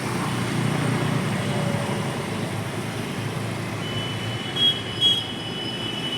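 Steady road-traffic rumble, with a steady high-pitched electronic tone coming in about four seconds in and swelling twice briefly.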